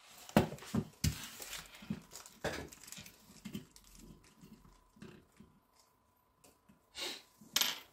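Small model-kit screws and plastic parts handled on a tabletop: a string of light clicks and rattles with some rustling, thinning out in the middle and picking up again near the end.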